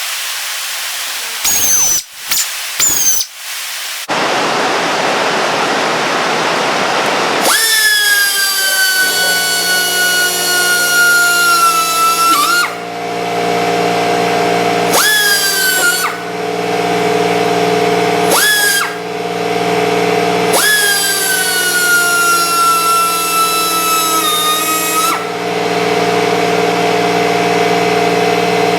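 Harbor Freight air die grinder being test-run: short blasts of air hiss at first, then four runs of a high spinning whine, the longest about five seconds, its pitch sagging slightly as it runs. From about nine seconds in, a steady machine hum runs underneath.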